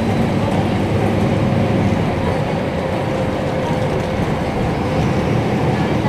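Mercedes-Benz city bus's inline six-cylinder diesel engine running steadily, heard from inside the bus.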